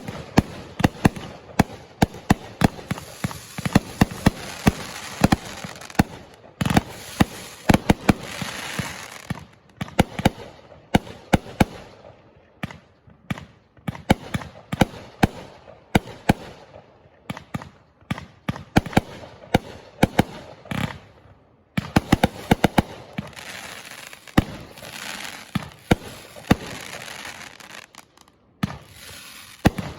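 Fireworks going off: many sharp bangs in quick, irregular succession, with crackling between them and a couple of brief lulls.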